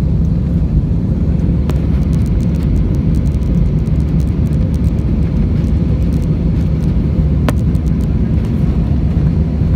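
Steady low drone of a jet airliner's engines and airflow, heard inside the passenger cabin during the climb after takeoff. Light clicks come and go, with two sharper ones about two seconds in and about seven and a half seconds in.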